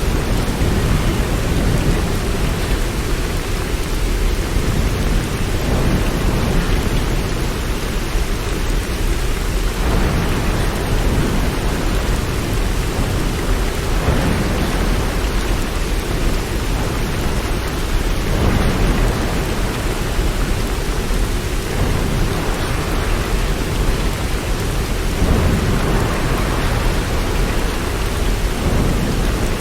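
Steady heavy rain, a dense even hiss, with low swells rising every few seconds underneath it.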